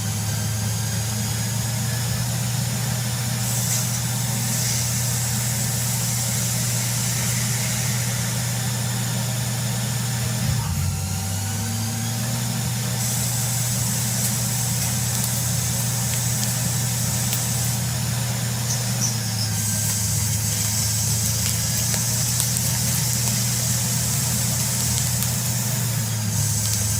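CNC lathe running a turning program: a steady machine hum with a high hiss that comes and goes several times. The hum wavers briefly about eleven seconds in.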